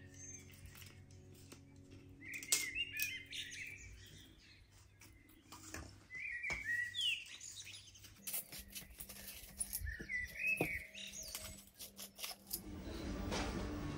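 Small birds chirping in short bursts, three or four times, with scattered light clicks and taps. Music comes in near the end.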